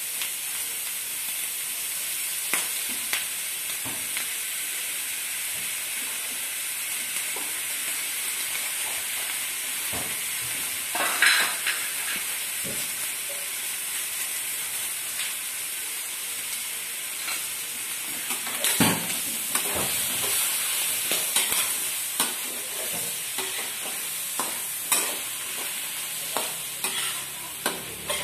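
Diced meat and carrot strips frying in a wok with a steady sizzle, while a spatula scrapes and knocks against the pan now and then, more often in the second half.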